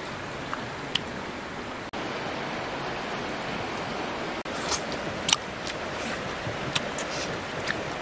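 Steady rush of a shallow river flowing over stones, with a scattering of short sharp clicks and taps, most of them in the second half.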